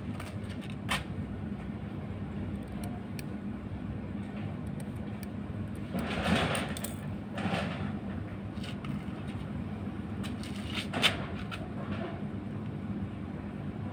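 Scissors cutting a strip of cloth, two snips about a second apart, amid the rustle of the cloth being handled, over a steady low hum. There is a sharp click later on.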